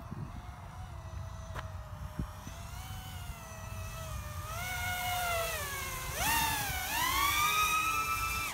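FPV racing quadcopter's electric motors whining, their pitch swooping up and down with the throttle. The pitch jumps sharply about six seconds in and stays high and loudest to the end, over a low rumble.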